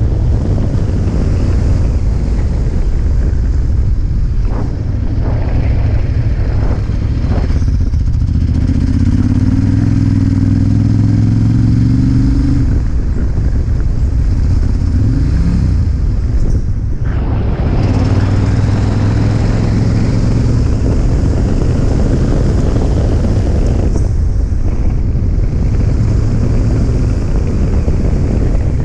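Ducati motorcycle engine running under way, its note steady at speed, with wind rushing over the microphone. The engine briefly eases off a little past halfway and again near the end.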